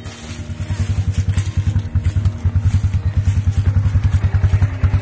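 ATV engine idling: an even, low putter of about a dozen pulses a second, growing louder about a second in as it comes close.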